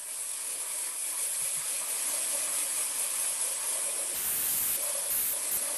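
Wooden toy car body held against a sanding disc spinning at about 620 rpm on a 1 hp motor: a steady hiss of abrasive on wood, with the motor under load. It cuts off suddenly at the end.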